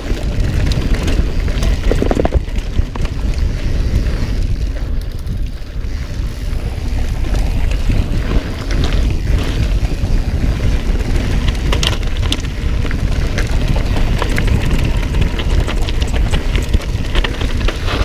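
Mountain bike riding fast over a dirt singletrack trail, heard through a body-mounted action camera: steady wind buffeting on the microphone and tyre rumble, with frequent short rattles and clicks from the bike over the rough ground.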